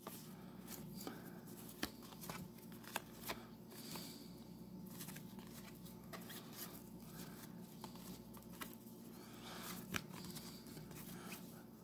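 Faint rustling and light clicks of 1991 Topps baseball cards being handled and flipped one by one, over a steady low hum.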